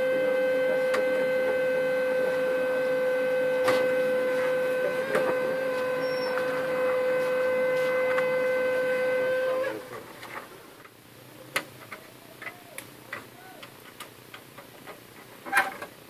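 HP LaserJet 1320 laser scanner (polygon mirror) motor screaming: a steady high whine with overtones that cuts off suddenly nearly ten seconds in. The noise is traced to the scanner motor's spindle and cured by oiling it. After it stops, a few light plastic clicks and knocks follow.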